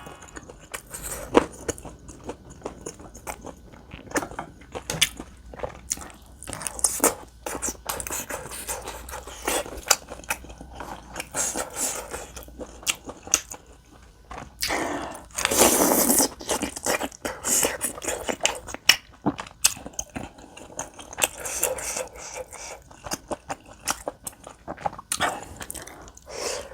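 Close-miked chewing and mouth sounds of a person eating spicy tteokbokki rice cakes with beef intestine: irregular wet smacks and clicks, with a louder stretch about fifteen seconds in.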